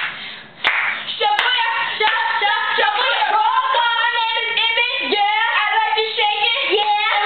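Hand clapping for about the first second, then voices singing without a break.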